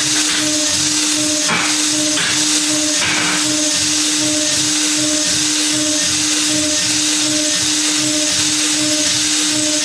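Spindle of a DIY CNC router running at high speed while milling aluminium: a steady whine with a constant hiss. The tone breaks briefly a couple of times a second, and a few short scraping bursts come in the first three seconds.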